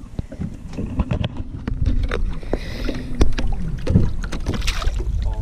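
Repeated knocks and bumps against an aluminum fishing boat, with water sloshing as a smallmouth bass is lowered over the side and released.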